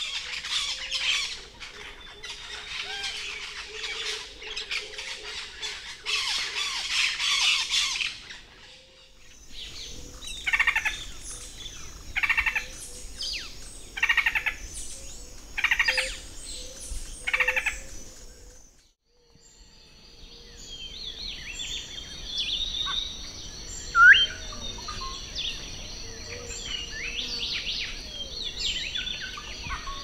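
A pair of fasciated wrens duetting in a dense, loud burst of song. After a break, a henna-hooded foliage-gleaner repeats its song phrase five times, evenly spaced. After another short pause, other forest birds call together, with two loud, sharp rising notes.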